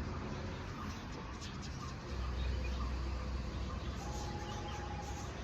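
Faint bird calls over a low steady rumble, with one held whistled note about four seconds in lasting just over a second.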